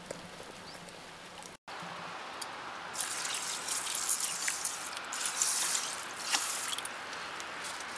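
Water poured from a plastic bottle into a stainless steel pot of raw rice, splashing and trickling unevenly for about four seconds from roughly three seconds in: measuring in the water to cook rice.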